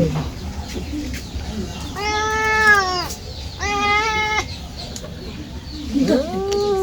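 Domestic cat meowing: two drawn-out meows about two and three and a half seconds in, then a third near the end that rises in pitch and holds.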